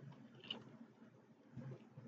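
Near silence: room tone, with a couple of faint brief sounds, about half a second in and again near the end.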